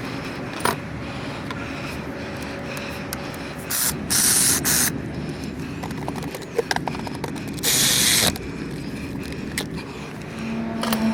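Two hissing bursts of spray, the first about a second long and the second about half a second, over a steady low engine hum, with a few light metallic clicks between them.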